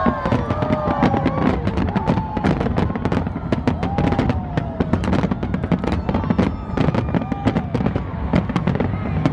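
Dense, continuous bangs and crackling of a large aerial fireworks display, many shell bursts a second overlapping with a low rumble.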